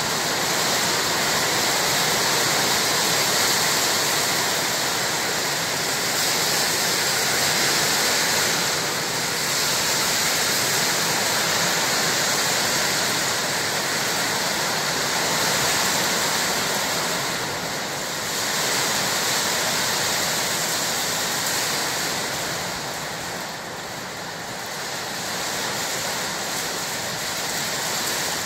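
Heavy rain pouring down: a steady, dense hiss with no thunder heard.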